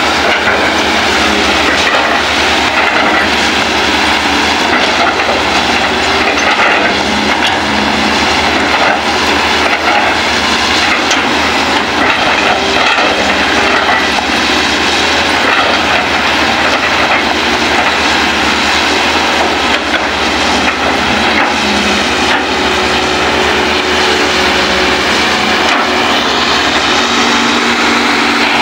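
Kobelco and Hitachi hydraulic excavators' diesel engines running under digging load, a loud steady mechanical din with clattering from the working machines.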